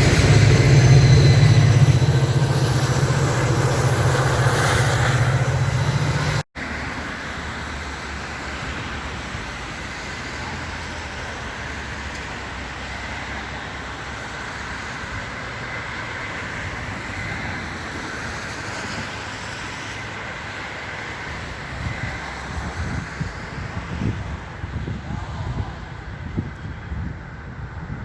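Metra commuter train: a diesel locomotive runs loud and close for the first few seconds. After an abrupt cut, the train rolls by more quietly with a steady rumble, and irregular wheel clatter starts near the end.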